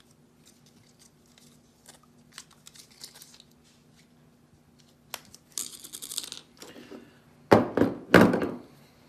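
Hands working PVC pipe fittings and a roll of Teflon tape on a table: light clicks for several seconds, then a brief scratchy rustle. Two loud thunks follow near the end as the parts are set down on the tabletop.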